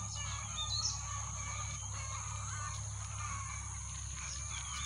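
Birds calling and chirping in the morning, scattered short calls with a sharp rising chirp near the start, over a steady faint background hum.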